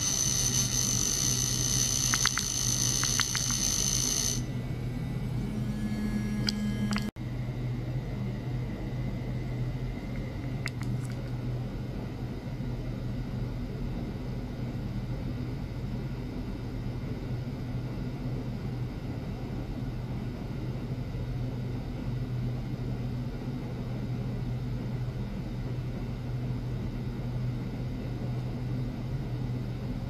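Electronic whine of several steady high tones from the ultrasonic test rig, which stops about four seconds in. After a brief dropout, a steady low electrical hum continues.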